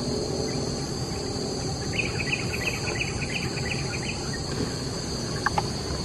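A steady, high insect drone with a low background rumble. About two seconds in, a bird gives a quick run of about a dozen short chirps lasting about two seconds, and two sharp notes come near the end.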